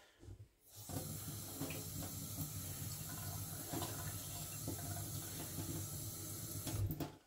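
Kitchen tap running into a stainless steel sink: a steady rush of water that is turned on about a second in and shut off abruptly near the end.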